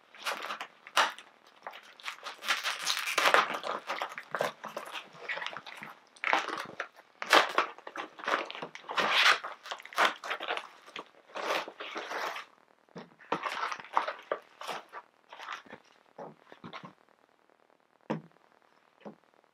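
A mailed package being torn open and its wrapping crinkled and rustled by hand: a busy run of irregular tearing and crinkling noises that thin out after about thirteen seconds into a few scattered rustles as the pillowcase inside is pulled out and unfolded.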